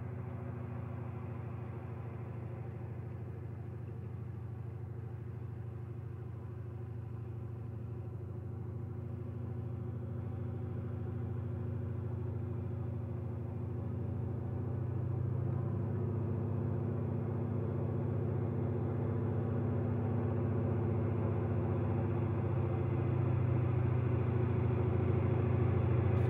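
De Havilland Canada Beaver floatplane's engine and propeller droning steadily as it flies in low for a landing on the water, growing gradually louder as it comes closer.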